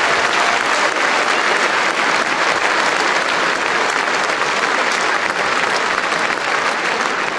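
Large stadium crowd applauding steadily, a dense wash of many hands clapping.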